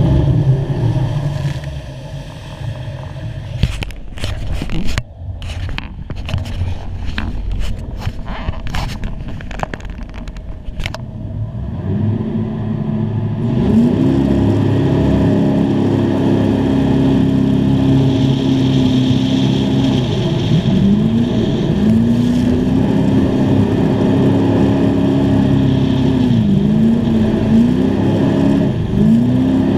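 Chevrolet-powered jet boat engine running at speed. About twelve seconds in it revs up hard and holds a high, loud note, dropping and climbing back several times. Sharp crackles come through before the rev-up.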